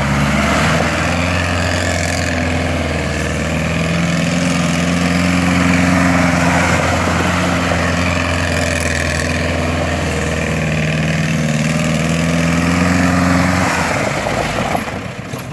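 Willys jeep engine held at high revs while the jeep drifts in circles on loose dirt. The pitch wavers up and down a little under a broad hiss, and the sound eases off about two seconds before the end.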